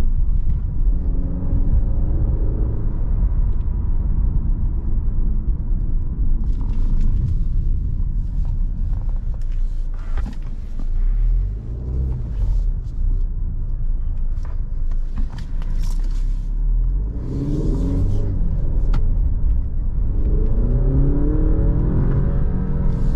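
Alfa Romeo Giulia Veloce's 2.0-litre turbocharged four-cylinder heard from inside the cabin on the move, over a steady low road rumble. The engine note rises under acceleration near the start and again over the last several seconds, with a scattering of clicks and knocks in the middle.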